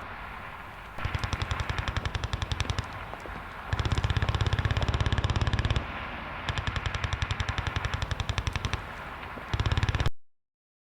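Machine-gun fire sound effects: four rapid bursts of automatic fire, each about one to two seconds long, with short pauses between them. The sound cuts off abruptly near the end.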